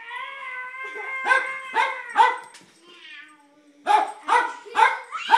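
Jack Russell terrier barking excitedly: three sharp barks about a second in, then a pause, then four more in quick succession near the end.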